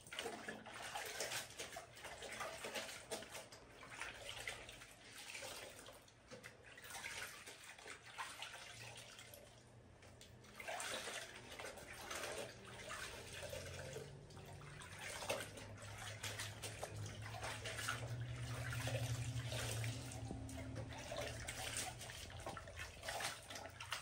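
Clothes being washed by hand in a plastic basin of water: wet fabric sloshing, rubbing and splashing in irregular bursts. A low hum comes in under it in the second half.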